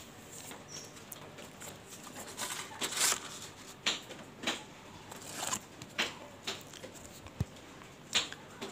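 Small glass fish tanks being handled and shifted on a table: a scattered series of light clicks and knocks, with a single low thump near the end.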